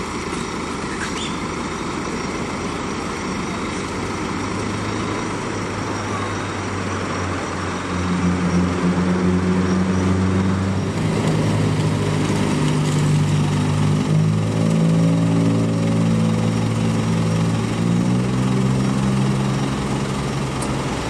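A small truck's engine idling steadily. About eight seconds in, slow background music with sustained low notes comes in and changes pitch in steps.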